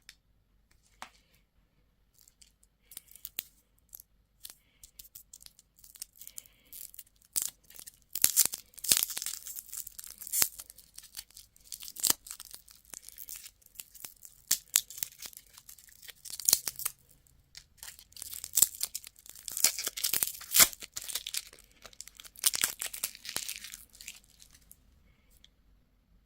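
A wrapper is torn open and crinkled by hand. Scattered sharp clicks give way to dense bouts of tearing and crackling from about a third of the way in until near the end.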